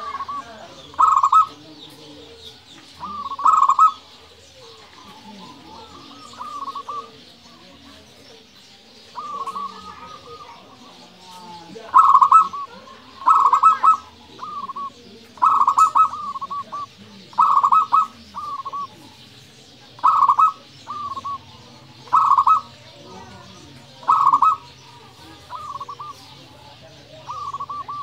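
Zebra dove (perkutut) cooing again and again: loud phrases of rolling coos, each trailed by softer notes, about every two seconds, with a lull of a few seconds a little way in.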